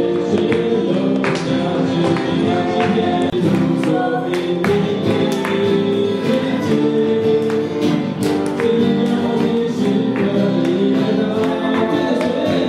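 Live worship song: a man singing to his own acoustic guitar, with keyboard accompaniment.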